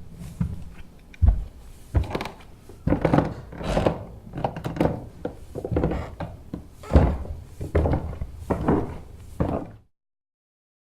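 A series of irregular heavy thuds and knocks, about a dozen strong hits with softer ones between, stopping abruptly near the end.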